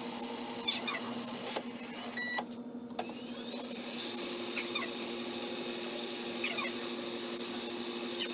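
Arcade ambience: a steady electronic hum from the game machines, with short, meow-like electronic chirps sounding in pairs every second or two.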